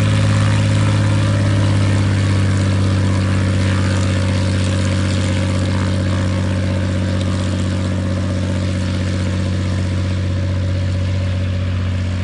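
Atlas Bosbok light aircraft's six-cylinder piston engine and propeller running at a steady pitch, gradually getting quieter.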